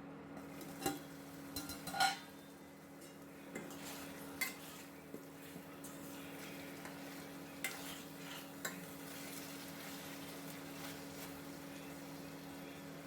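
Boneless chicken pieces frying in hot oil in a pan with a steady sizzle, stirred with a utensil that clinks and scrapes against the pan a few times, loudest about two seconds in. A steady low hum runs underneath.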